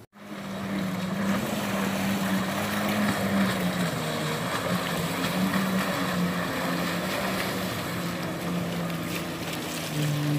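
Jet ski engine running at speed across open water, a steady drone whose pitch shifts near the end.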